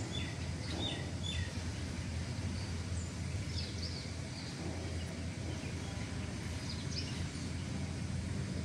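Small birds giving short, scattered chirps over a steady low background rumble.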